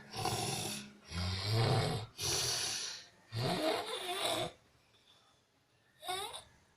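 Sleep snoring: four snoring breaths in quick succession, two of them with a deep low rattle, then a pause and a short squeaky sound about six seconds in.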